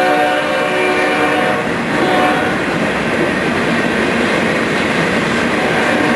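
Freight train of ballast hopper cars rolling past, with a steady rumble of wheels on the rails. A held multi-note horn chord from the departing locomotives fades out about a second and a half in.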